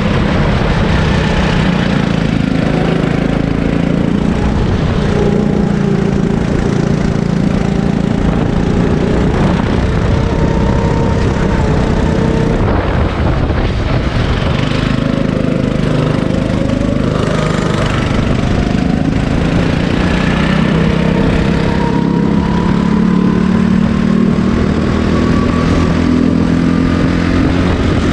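Sodi kart engine heard onboard at racing speed, its pitch rising and falling with the throttle. The revs drop about halfway through as the kart slows for a corner, then climb steadily near the end as it accelerates.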